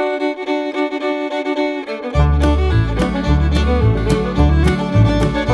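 Background music in a bluegrass style: a fiddle melody plays alone at first, then a bass line and a steady beat come in about two seconds in.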